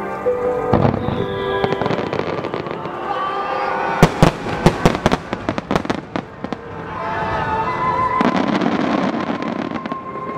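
Fireworks bursting over music: a thud about a second in, a rapid string of sharp bangs midway through, and a dense crackle in the last couple of seconds.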